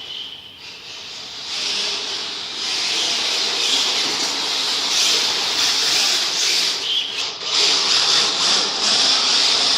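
Radio-controlled model Mk2 Ford Escort running across a car park: a steady hissing rush that grows louder a second or two in. Short high squeaks come right at the start and about seven seconds in.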